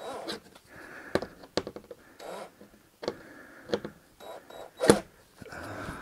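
A cordless drill briefly backing a screw out of a sheet-metal stovepipe, among scattered clicks and knocks of handling the pipe and the aluminium stepladder. A sharp knock near the end is the loudest sound.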